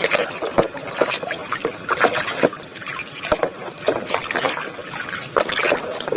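Water splashing and trickling as a plastic toy is washed, with irregular small splashes and knocks throughout.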